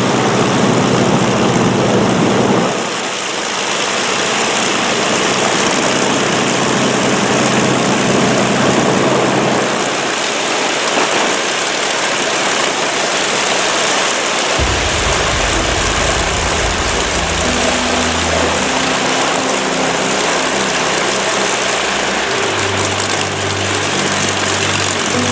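The Avro Lancaster's Packard Merlin V12 piston engines running on the ground, a steady loud drone with propeller noise. From about halfway through, orchestral background music comes in under the engines.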